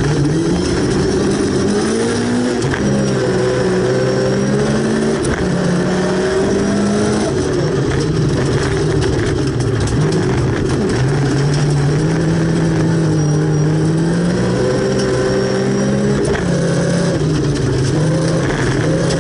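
Volvo 240 rally car's engine heard from inside the cabin, pulling hard with its pitch climbing and dropping again and again through gear changes and lifts on a gravel stage.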